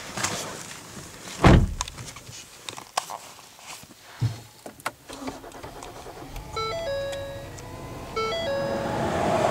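Clicks and a heavy thump inside a car cabin. Then, as the 2013 Ford Taurus SHO is started with its push button, a dashboard electronic chime of short stepped tones plays twice, about a second and a half apart. A low rumble and steady blower noise build up near the end.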